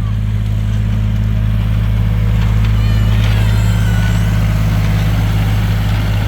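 Steady low drone of a miniature ride-on train's engine running, with faint high-pitched sounds about two to four seconds in.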